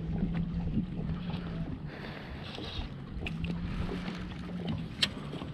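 A steady low mechanical hum on a fishing boat, dropping out briefly partway through, with light rustling and small clicks and one sharp click about five seconds in.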